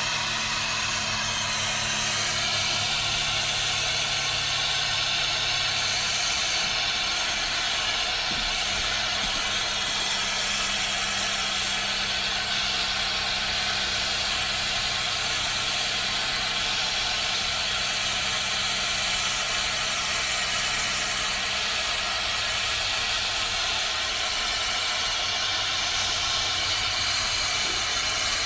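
A machine running steadily: an even hiss with several steady whining tones in it, holding level throughout.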